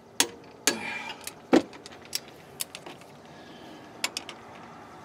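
Click-type torque wrench and its ratchet working on brake caliper bolts being torqued to 40 ft-lb: about ten sharp, irregular metallic clicks, the loudest about a second and a half in, with a quick cluster about four seconds in.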